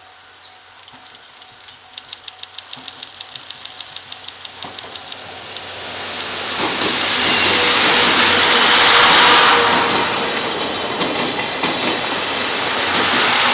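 ED75 electric locomotive hauling 12-series passenger coaches past at close range. First comes a rhythmic clicking of wheels over the track as it approaches, then a loud rumble and rail noise as the locomotive and coaches go by, loudest about eight to ten seconds in.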